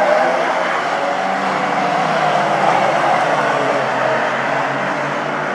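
Several saloon stockcars racing past on an oval track: a number of engines running at once, a steady blend of engine notes.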